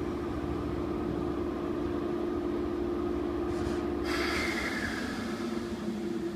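Toei 10-300R series subway train standing at the platform with a steady electrical hum and low rumble. About four seconds in comes a sudden hiss that slowly fades.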